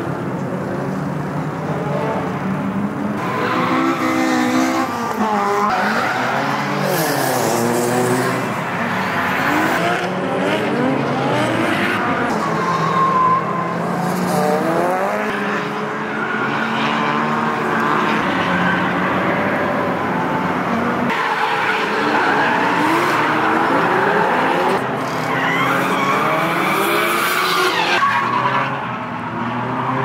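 Drift cars' engines revving up and down, more than one at a time, with tyres skidding and squealing as they slide through the corner. Louder bursts of tyre noise come about a quarter of the way in and again near the end.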